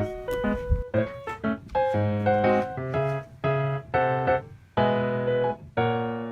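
Piano-like keyboard music: chords struck one after another in a fairly regular rhythm, each ringing and fading before the next.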